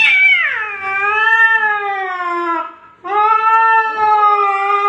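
Domestic cat caterwauling in a face-off with another cat through a glass door: two long, loud yowls. The first slides down in pitch and fades out just short of three seconds in. After a brief break the second starts and holds a steady pitch.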